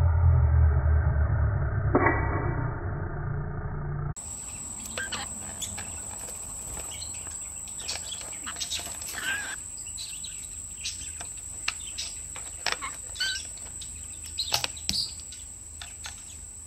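For about four seconds, loud music with a heavy low beat and one sharp hit. It cuts off suddenly. Then come many short clicks and scrapes of parrot beaks on a plastic bottle cap as the birds twist it off, with a few short chirping parrot calls.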